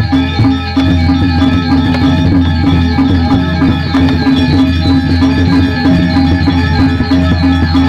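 Balinese gamelan playing music for a Barong Ket dance: a shimmer of struck metal tones over a steady low gong hum, with rapid repeated notes and sharp clicks keeping an even pulse.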